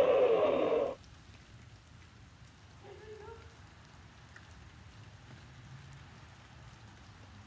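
Starfighter engine sound effect for an X-wing, a noisy rush with falling pitch that cuts off abruptly about a second in. A faint steady outdoor hum follows.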